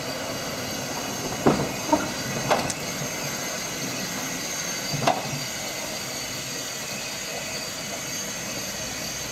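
Sheffield double-deck electric tram No. 510 running past on street track, a steady running noise with several sharp clunks from the wheels and rails about one and a half to two and a half seconds in and again about five seconds in.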